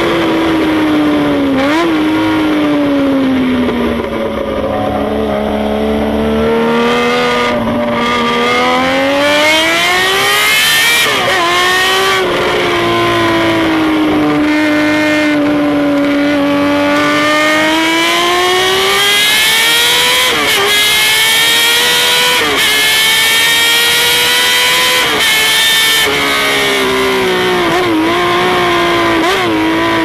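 Honda CBX 1050 air-cooled inline-six engine heard from on board while being ridden hard on a track. The engine note falls and rises smoothly as the throttle is closed and opened, with quick blips of revs a few times during gear changes.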